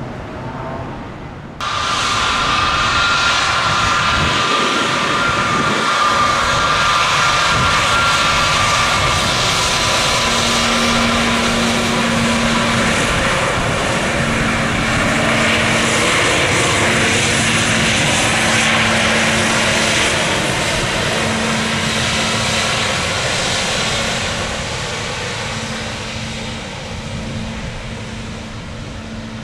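Jet airliner engines: a loud steady rush with a high whine, which comes in abruptly about a second and a half in and eases off near the end.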